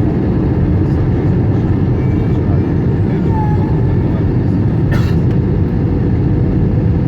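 Steady loud rumble of an Airbus A321-200 airliner heard from inside the passenger cabin, with a short click about five seconds in.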